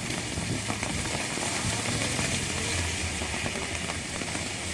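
Heavy rain pouring onto a wet street, a steady dense hiss, with a low rumble of a vehicle on the road underneath.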